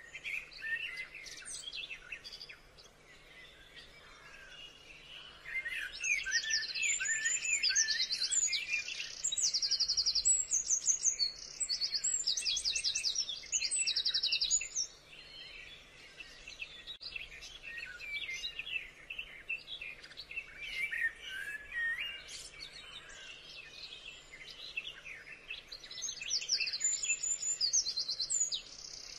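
A chorus of birds chirping and calling. A loud, rapid, high-pitched trilled song comes in repeated short phrases from about six to fifteen seconds in and again near the end.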